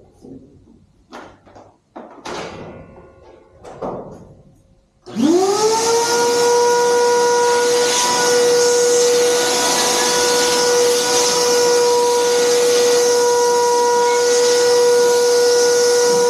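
A handheld power tool's electric motor spins up about five seconds in and runs at a steady, even-pitched whine over a hiss. Before it, a few scattered knocks of handling.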